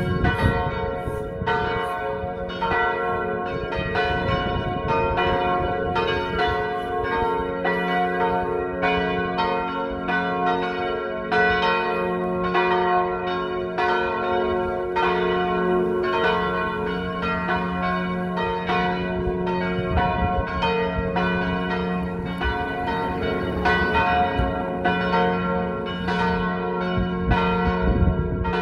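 Three swinging church bells, tuned G-flat, B-flat and D-flat, ringing together in a full peal: a steady stream of strokes, about one and a half a second, each one's hum running on under the next.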